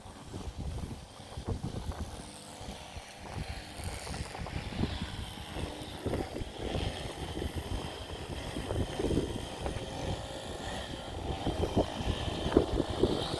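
Wind buffeting the microphone in irregular, gusty rumbles.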